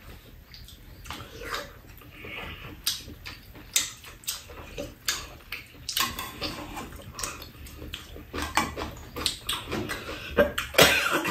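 Close-up eating sounds: chewing and smacking, with metal chopsticks clicking against bowls and dishes. A louder cough comes near the end.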